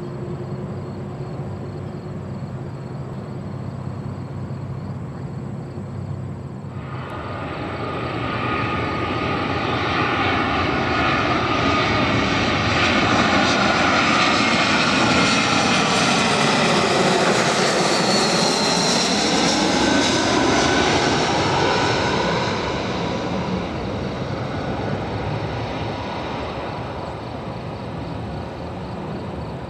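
Airbus A320-200 airliner on final approach passing low overhead. Its jet engine noise swells from about a quarter of the way in and peaks near the middle, with a whine that drops in pitch as the plane passes. It then fades as the plane moves away toward the runway.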